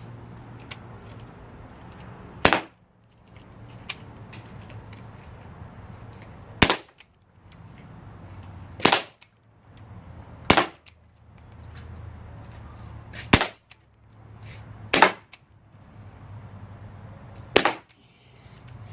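CO2-powered BB gun firing metal BBs: seven single shots, each a sharp pop, spaced about two to four seconds apart.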